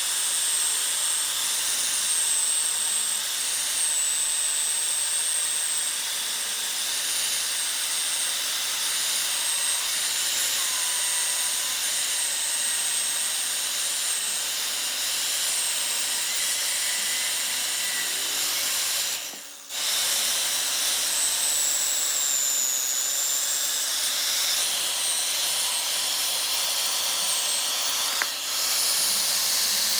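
Wood lathe turning, with a tool cutting the spinning wood: a steady high hiss and a thin wavering whistle. The sound drops out briefly about two-thirds of the way through.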